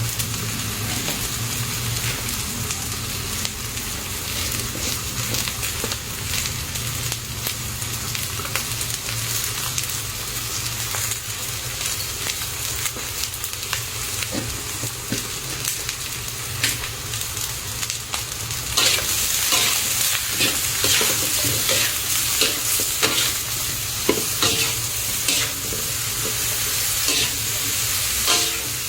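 Rat meat frying in hot oil in a pan, sizzling steadily while a utensil stirs and scrapes it. About two-thirds of the way in the sizzle gets louder and the stirring clicks and scrapes come more often.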